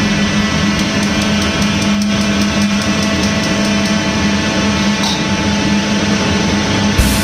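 Commercial wok range running: a loud steady roar with a constant low hum, mixed with tap water pouring into a pot. There are a few faint light clicks.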